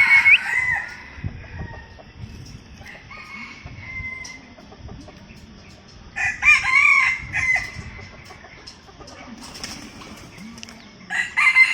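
Rooster crowing, with one loud crow of about a second and a half starting about six seconds in and quieter calls around it.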